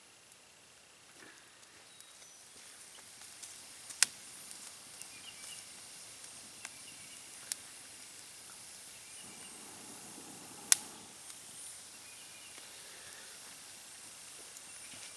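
Campfire of rain-soaked wood hissing steadily and crackling, with scattered sharp pops, the two loudest about four seconds and about eleven seconds in.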